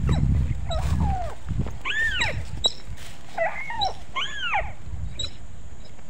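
A series of about five high, whining animal cries, each rising and then falling in pitch, over the first five seconds.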